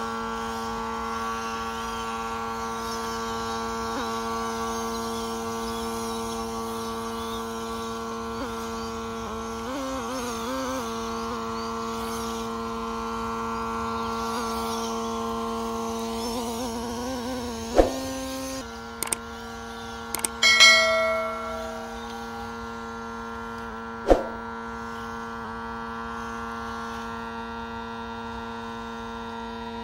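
A steady droning hum holding one pitch, shifting slightly about two-thirds of the way through, with a few sharp clicks and a brief higher tone in the middle.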